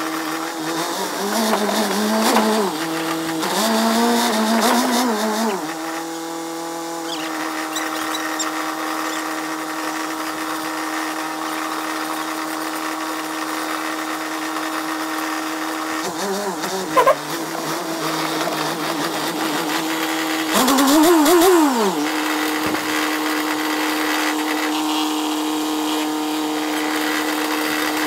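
Tracked all-terrain vehicle's engine running at a steady pitch while the vehicle drives, revving up and down in several swoops near the start, briefly in the middle, and again later.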